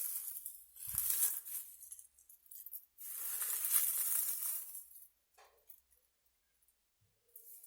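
Bursts of close-up rustling and crinkling noise, three longer ones and a short one, then a pause of about two seconds near the end.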